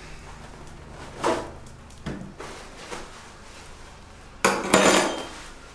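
Small objects being handled and set down: a few light knocks and clicks, then a louder, longer clatter about four and a half seconds in.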